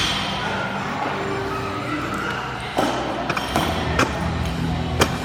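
Gym background noise with a few sharp knocks in the second half, about a second apart, the last the loudest.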